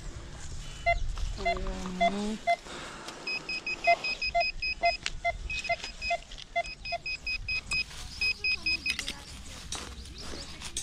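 Metal-detecting gear beeping in short repeated electronic beeps, about three a second, in a lower and a higher pitch, as the handheld pinpointer probes the dug hole for a target.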